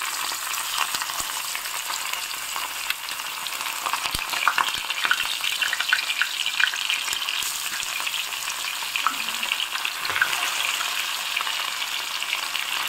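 Masala-coated sankara (red snapper) fish pieces frying in sesame oil on an iron dosa tawa: a steady, busy sizzle and crackle, with a few knocks as pieces are laid into the pan. The lively sizzle is the sign that the undersides are not yet cooked through.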